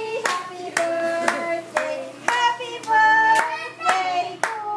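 People singing a birthday song and clapping in time, about two claps a second, over held sung notes.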